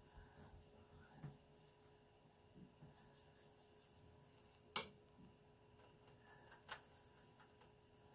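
Near silence: faint brushing of a watercolor brush over watercolor paper, with a sharp tick about five seconds in and a fainter one nearly two seconds later.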